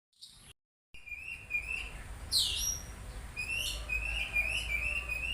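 Oriental magpie-robin (kacer) song: varied whistled phrases and chattering notes, with a loud sweeping note a little over two seconds in, over a steady low hum. It starts about a second in, after a brief blip.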